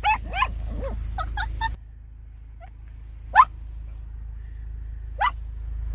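Maltese dog barking: a run of short high yaps in the first two seconds, then two single sharp barks about two seconds apart.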